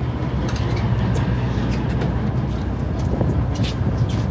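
A sportfishing boat's engine running with a steady low drone, with a few faint clicks over it.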